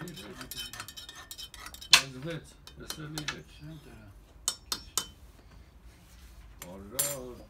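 A metal spoon stirring and clinking against a metal jezve as Armenian coffee is made: a run of light clinks, one sharp clink about two seconds in, and a few more later.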